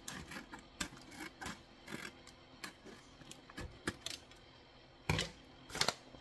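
Kraft-paper sugar pouch crinkling and rustling as it is handled, a run of irregular crackles with a louder, longer rustle about five seconds in.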